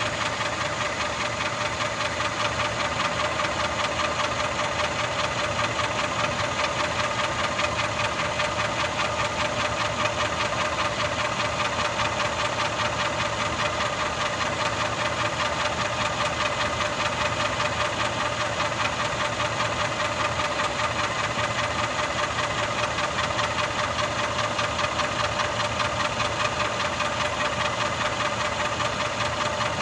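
Mercedes-Benz M278 twin-turbo V8 idling steadily with a fast, even ticking-knocking sound, which seems loudest from the bottom of the engine.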